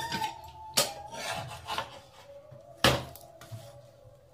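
A few sharp knocks and clatters of kitchen utensils against a tawa, the loudest about three seconds in, as a stuffed paratha cooks on it. A faint steady tone sounds underneath.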